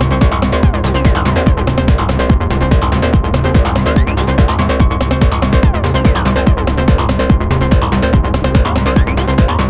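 Electronic techno jam from a Roland TR-09 drum machine and Moog synthesizers: a steady drum-machine beat with fast, regular hi-hat ticks over a repeating synth bass line.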